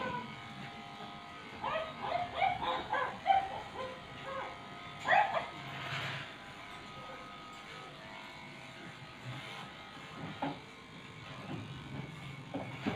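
Electric dog-grooming clippers running with a steady hum as they shave a matted Shih Tzu's coat. Between about 2 and 5 seconds in there are several short sounds that bend in pitch; they come from a voice, either the dog or a person.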